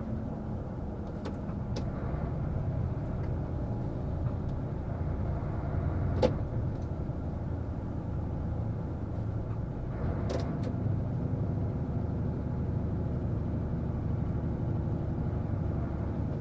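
Heavy truck's diesel engine running steadily, heard from inside the cab while rolling slowly, with a few short clicks or knocks. The loudest knock comes about six seconds in.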